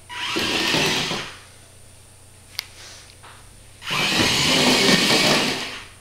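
Small geared DC drive motors of an Arduino robot car whirring in two bursts, one about a second long and a longer one of about two seconds near the end, as the robot drives and turns on wooden floorboards. A single sharp click falls between the bursts.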